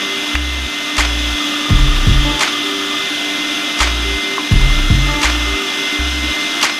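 Background music with a low bass line and a regular beat, over the steady hum of an electric sausage maker's motor pushing meat into the casing.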